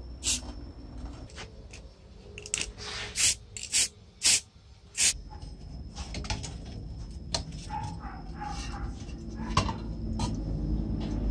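A run of sharp clicks and knocks as the old pencil sharpener is handled, then, about five seconds in, a steadier low noise with faint clinks as a rusty sharpener part is moved about in a steel pot of dark liquid with pliers.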